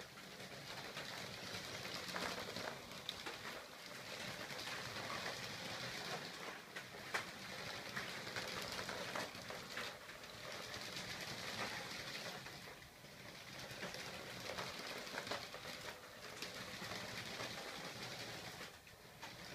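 Small robot's electric drive motors whirring as its omni-directional wheels roll and rattle over a concrete floor, with small clicks; it eases off briefly in the middle and falls away near the end.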